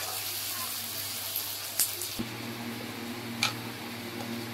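Sliced onions and garlic sizzling in hot mustard oil in a kadhai, with a light click of the stirring spatula. About two seconds in the sound cuts abruptly to a steady low hum with an occasional click.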